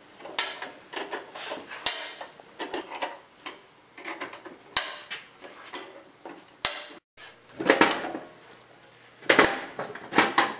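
Metal tools and mower parts clinking and clattering in irregular knocks and rattles during hand work on a riding mower.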